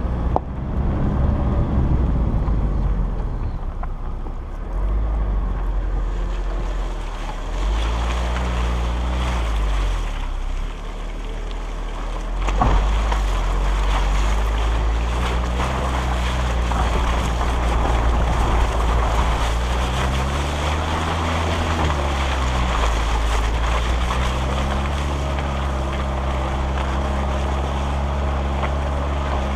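SUV engine revving up and falling back again and again as it drives over a muddy track, with tyres churning through the mud and wind buffeting the microphone on the outside of the vehicle. One sharp knock about halfway through.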